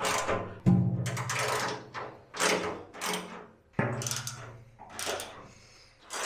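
A socket on a long extension drives the bolts that hold a steel radiator support to the car's subframe. There are several bursts of tool and metal noise, with sharp starts about a second in and again near four seconds.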